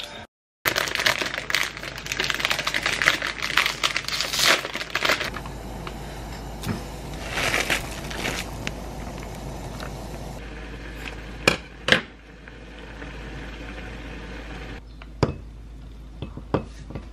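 Instant noodle packet crinkling and rustling for about five seconds as it is torn open and shaken, then quieter kitchen handling with two sharp knocks of the pot and a few light clinks near the end as the noodles are tipped into a glass bowl.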